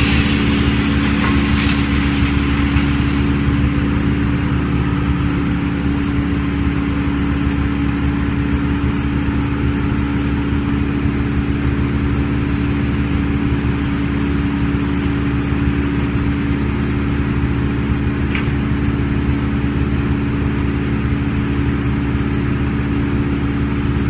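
Heavy engine running steadily at one constant speed, a low, even hum with no revving or load changes. It cuts in abruptly at the start.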